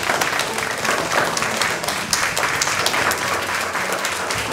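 Audience of schoolchildren applauding, a steady patter of many hands clapping.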